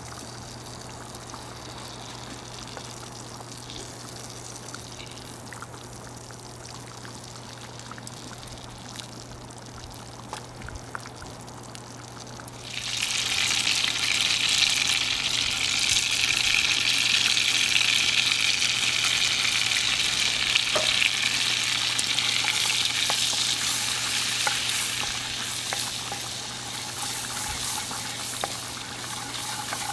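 Butter melting in a skillet over a wood fire, a wooden spatula pushing it around. For the first half there is only a faint sizzle with small crackles, then about halfway a loud frying sizzle starts suddenly as the butter foams, easing a little toward the end.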